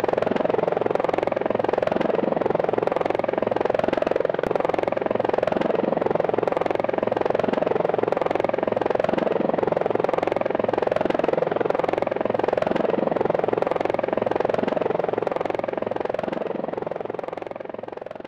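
DJI Phantom 3 quadcopter's rotors humming steadily while it hovers low, fading out over the last few seconds.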